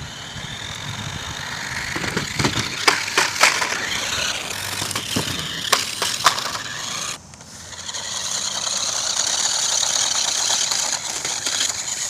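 A New Bright Desert Rat toy RC buggy, with a battery-powered electric motor and gears, whirring as it drives. A run of clacks and knocks comes between about two and six seconds in as it hits a cardboard ramp, lands and tumbles. After a sudden cut about seven seconds in, the motor whirs steadily, with crunching from the tyres on wood chips.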